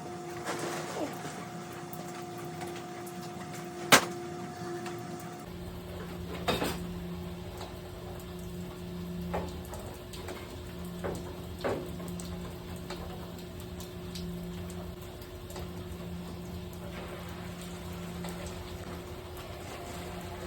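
Hot water spraying steadily from the top of a failed, corroded expansion tank, with mechanical-room hum behind it. There is a sharp knock about four seconds in and a few lighter knocks after it.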